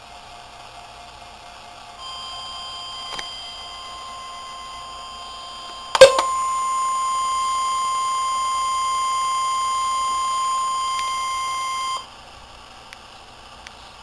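NOAA Weather Radio warning alarm tone, a steady single-pitch tone near 1 kHz, playing through a weather alert radio's small speaker. It is heard faintly from about two seconds in, jumps much louder after a sharp click about six seconds in, and cuts off suddenly about twelve seconds in.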